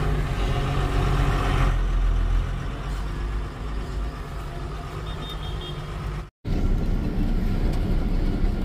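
Truck engine running, a steady low drone, broken by a brief cut to silence a little past six seconds in.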